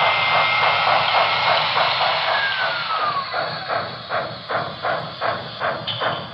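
Sound system of an HO-scale PRR L1s 2-8-2 steam locomotive model (Broadway Limited Paragon3 Rolling Thunder) playing steam hiss and exhaust chuffs as the engine runs. The chuffs come about two to three a second and grow quieter, and a high tone slides down and stops about three seconds in.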